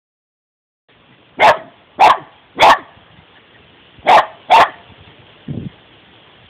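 Dogs barking at a turtle they have found: five sharp barks, three in quick succession and then two more after a short pause, followed by a softer, lower sound near the end.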